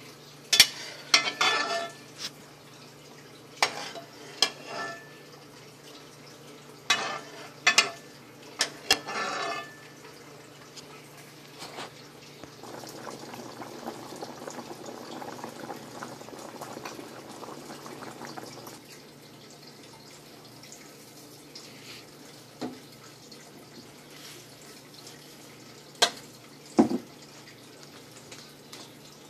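A spoon scraping and clattering in a pan of cubed chicken and broccoli being stirred, in a run of sharp knocks over the first ten seconds. Then a pot of liquid bubbling at the boil for several seconds, followed by a few single knocks of utensils on cookware.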